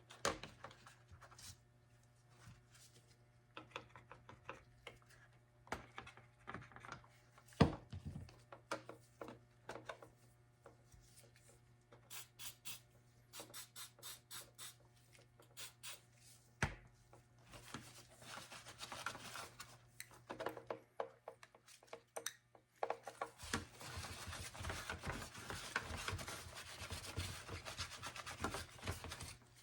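Hands handling and rubbing molded plastic armor pieces: faint scattered taps and clicks, a short run of evenly spaced clicks about halfway through, and a longer stretch of scraping and rubbing near the end.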